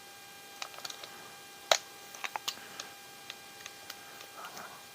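Scattered light clicks and taps of small tools and parts being handled while taking apart an RC rock crawler, with one sharper click just under two seconds in, over a faint steady hum.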